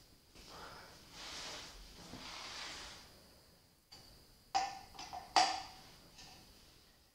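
Rustling handling noise, then two sharp metallic clinks about a second apart with a short ring, as a steel T-handle hex key is set into a motorcycle brake-rotor bolt and knocks against the steel disc.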